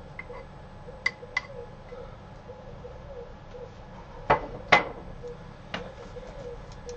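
Kitchen utensils and dishes knocking as a salad is put together: two light clinks about a second in, two louder knocks a little past four seconds, and one more shortly before the end.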